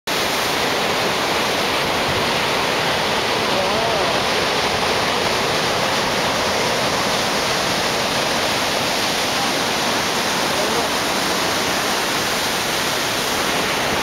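Ocean surf breaking and washing over a rock shelf: a steady, dense rush of white water with no single wave standing out.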